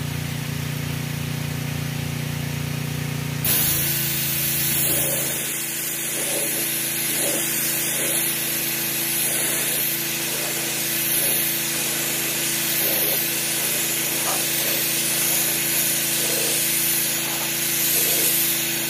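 A pressure washer's motor hums steadily. About three and a half seconds in, its undercarriage cleaner starts spraying water up under the car with a loud, steady hiss over the hum.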